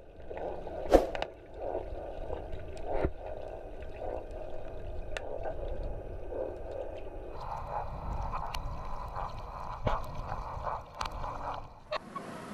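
Muffled underwater pool sound picked up by a submerged camera: irregular bubbling and gurgling, with a few sharp knocks.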